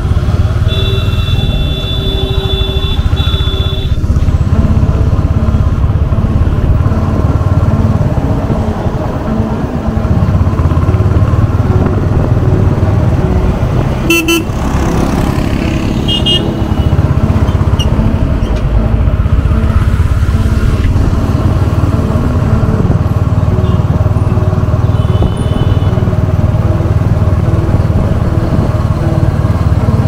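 Royal Enfield Hunter 350's single-cylinder engine running through its stock exhaust while riding in city traffic. Vehicle horns toot several times, the longest about a second in.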